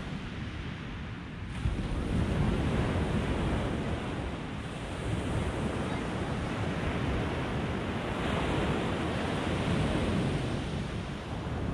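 Small sea waves washing onto a sandy beach, a steady surf that swells and eases, with wind rumbling on the microphone.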